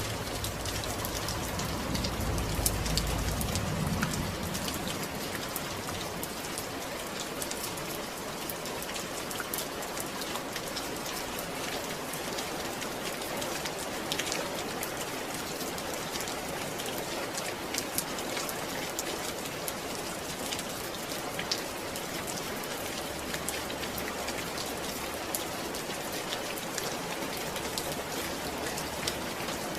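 Steady rain falling, with many individual drops ticking through an even hiss. A brief low rumble swells a couple of seconds in and fades by about four seconds.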